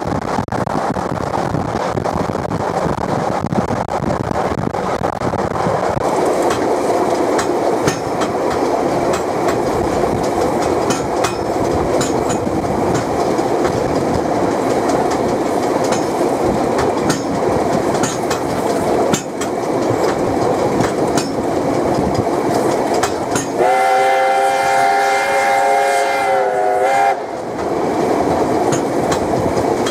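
A train hauled by NZR Ab-class steam locomotive Ab608 running on the track: a steady rumble with clicks from the wheels. About 24 seconds in, the locomotive's steam whistle sounds one long blast of about three and a half seconds, its pitch dipping slightly just before it stops.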